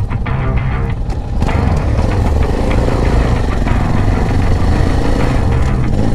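Trail motorcycle engine running as the bike is ridden: a steady low drone that thickens and grows louder about a second and a half in.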